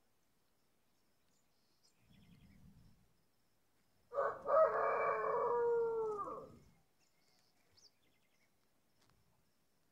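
A rooster crowing once, about four seconds in: one crow of roughly two and a half seconds whose pitch falls away at the end.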